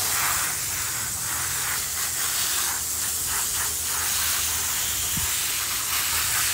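Garden hose pistol-grip spray nozzle hissing steadily, its jet of water spraying onto a dog's wet coat and the grass.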